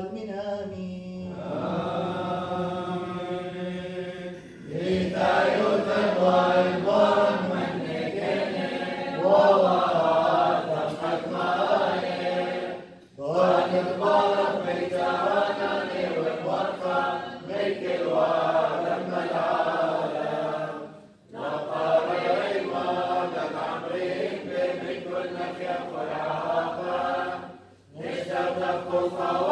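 A church choir sings a liturgical chant of the Assyrian Church of the East. It opens on a held note, and the melodic phrases begin about five seconds in, with brief breaks for breath about 13, 21 and 28 seconds in.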